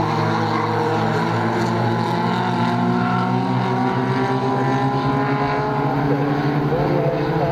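Several stock car engines running hard as a pack of race cars laps the track, their overlapping pitches drifting up and down.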